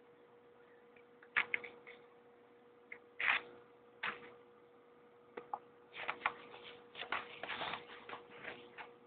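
Graphite pencil scratching and tapping on paper in irregular strokes: a few sharp ones about a second and a half and three seconds in, then a denser run of strokes in the second half. A steady faint hum runs underneath.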